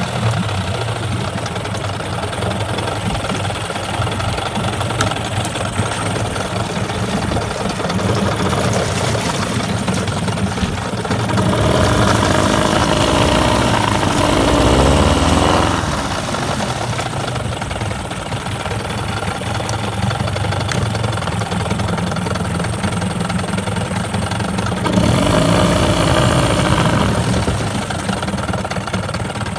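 Mariner 9.9 hp two-stroke outboard running in a test tank, its propeller churning the water. It idles steadily and is revved up twice for a few seconds, about twelve seconds in and again near the end, each time easing back to idle.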